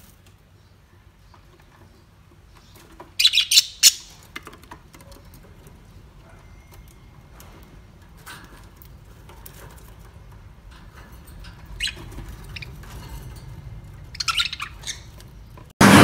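Caged budgerigars giving short bursts of sharp, high chirps, about three seconds in and again near the end, with scattered softer calls between.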